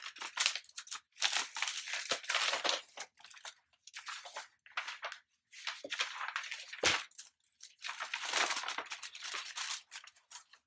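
A Priority Mail envelope being torn open and its paper contents crinkled and rustled by hand, in a series of bursts with short pauses. There is a single sharp knock about seven seconds in.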